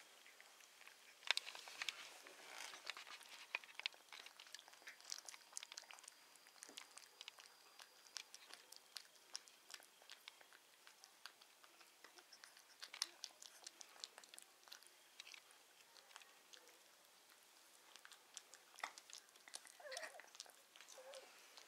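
Pembroke Welsh Corgi puppy eating from a bowl: faint, irregular clicks and crunches of chewing, in uneven clusters.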